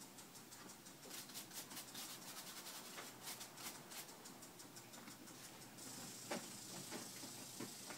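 Faint scattered clicks and rustling in wood-shavings stall bedding as a person and a horse shift about, over a low hiss that grows brighter about six seconds in.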